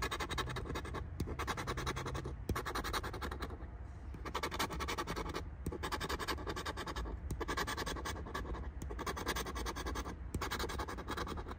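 Instant lottery scratch-off ticket being scraped with a hand-held scratcher tool. Fast rasping strokes come in short runs, with a brief pause between runs as each play spot is cleared.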